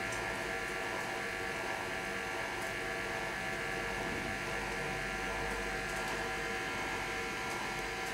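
A steady electrical buzz made of several held tones over a constant hiss, with a few faint ticks.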